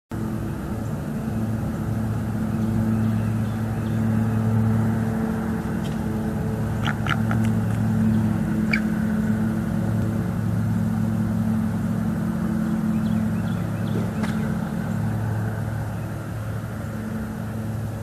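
A steady, low engine drone that swells and fades, with a few short, sharp high chirps or clicks around the middle.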